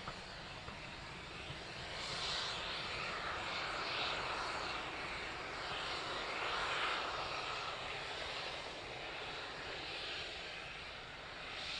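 BR Western Region Manor class 4-6-0 steam locomotive passing with its train, then its coaches rolling by. A steady rush of running noise swells and fades a few times.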